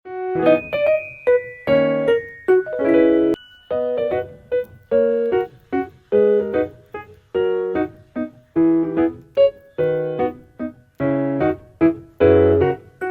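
Background piano music: chords and notes struck in a steady, even rhythm.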